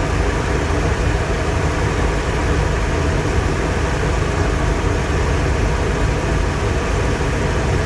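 Chevy Express 4.3-litre Vortec V6 running steadily, on a new distributor cap and rotor but still with fuel-fouled spark plugs, which the mechanic blames for a slight remaining misfire.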